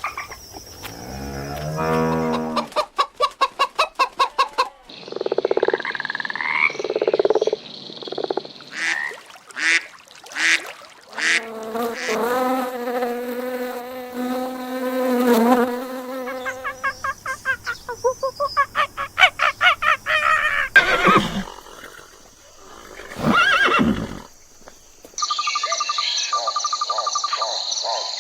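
A series of different animal calls and cries, one after another, changing every few seconds. A fast pulsing run comes near the start, a long pitched call falls in the middle, and a buzzing, pulsing sound comes near the end.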